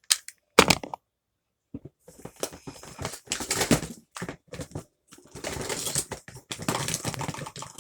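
Plastic fidget toys being handled and rummaged through: quick clicks, taps and rustling. A single click comes near the start, then a second of silence, then a dense run of clicking from about two seconds in.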